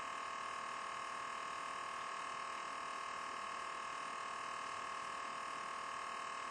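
Steady electronic whine made of several held tones, with no change in pitch or level: electrical interference in the recording.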